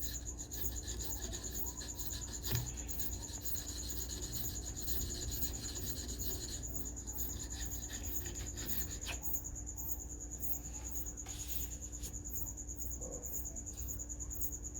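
Steady high-pitched insect trill, going on without a break, over a faint low hum, with one sharp click about two and a half seconds in.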